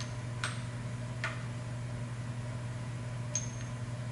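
Three light clicks as parts are handled at a milling machine vise, about half a second, a second and a quarter, and three seconds in. The last is a small metallic clink with a brief ring. A steady low hum runs underneath.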